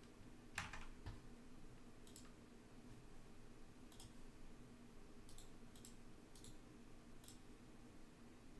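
Faint computer keyboard and mouse clicks: about eight separate clicks spread out, the loudest about half a second in, over a low steady room hum.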